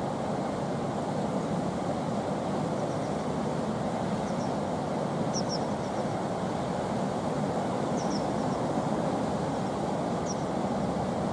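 Steady rushing of whitewater churning out of the stone arches of a slalom course. A few brief, faint high chirps sound over it.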